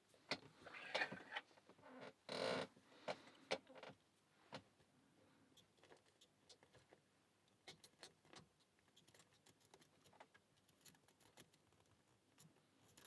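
Faint clicks and scrapes of lock picks and a tension tool working in a Stabilit A40 padlock during a speed-picking attempt, with a short scraping rattle about two and a half seconds in and sparser light clicks later on.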